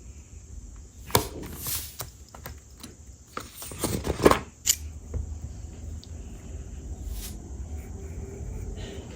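Journaling supplies being handled on a desk: a few light taps and clicks and short paper-like rustles, the loudest rustle about four seconds in, then a quieter steady low background hum.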